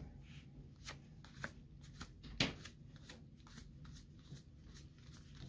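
Magic: The Gathering trading cards being flipped through and set down by hand: a run of light card flicks and snaps, the loudest about two and a half seconds in.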